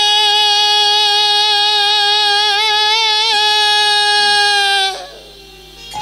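A woman singing a Bengali kirtan holds one long note, with a brief wavering ornament a little past the middle, and breaks it off about five seconds in.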